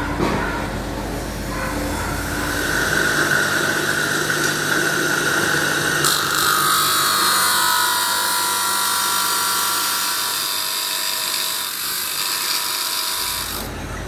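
Steel knife blade being ground on a motor-driven grinder wheel: a steady high grinding hiss with a whine that steps down in pitch partway through, cutting off abruptly near the end.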